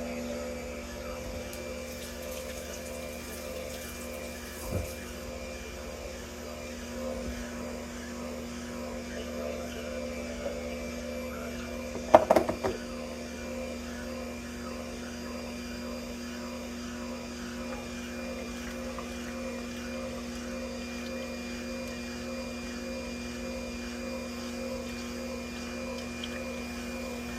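Electric juicer motor running steadily with a low hum as pineapple is fed through it. There is a brief knock about twelve seconds in.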